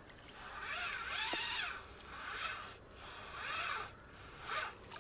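Spinning reel being cranked in four short spells, its gear whir rising and falling in pitch with the speed of each run of turns, as a hooked fish is reeled in on a feeder rod.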